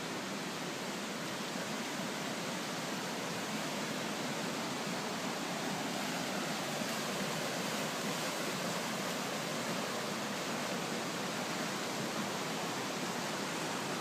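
Steady rushing of a flood-swollen river.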